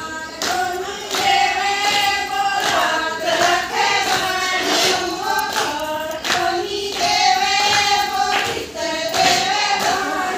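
A group of women singing a Haryanvi folk song together in unison, with hand claps along with it.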